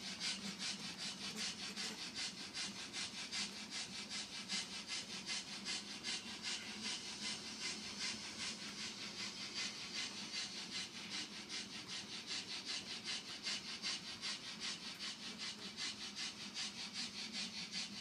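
Model train wagons rolling along the track, their small metal wheels clicking rhythmically over the rail joints, about four clicks a second, over a steady rasping rumble.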